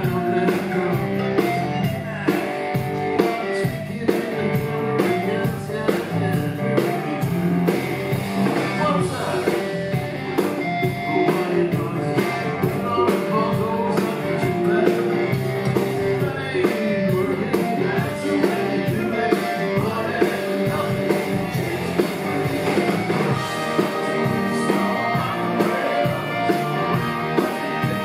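Live rock band playing: electric guitar, bass guitar and a drum kit keeping a steady beat, with a man singing lead at the microphone.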